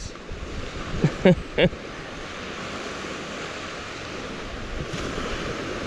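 Small surf washing onto a sandy beach, a steady hiss with wind on the microphone. About a second in, a man's voice makes two or three brief sounds that stand out above it.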